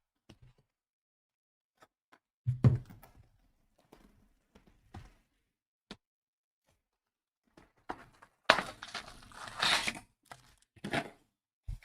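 Handling on a tabletop: a few separate thunks, then a card-pack wrapper torn open and crinkled for about two seconds, with a shorter rustle just after.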